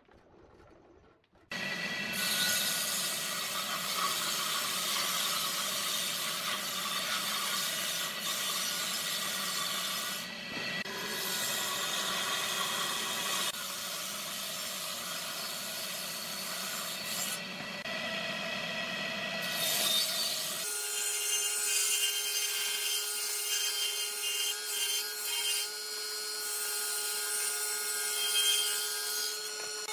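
A Hitachi combination woodworking machine's table saw running and ripping pallet boards fed along the fence. It starts abruptly about a second and a half in, and about two-thirds of the way through the sound changes abruptly, losing its low rumble.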